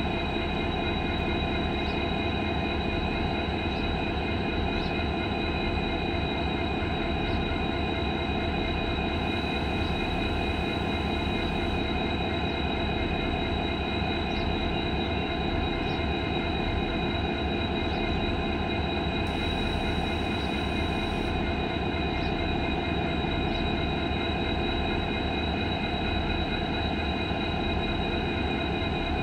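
Two EMD diesel-electric locomotives, a WDG-4D and a WDG-4, idling together. Each runs a two-stroke V16 engine, and the sound is a steady, even engine rumble with a constant high whine over it.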